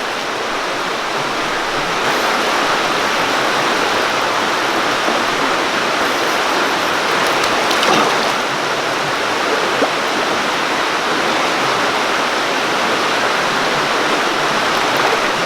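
Steady rush of a rocky creek's running water, close to the microphone, with a few faint clicks.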